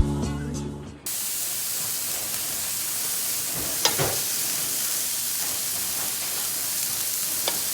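Background music ends about a second in, giving way to a steady hissing noise with two faint clicks partway through.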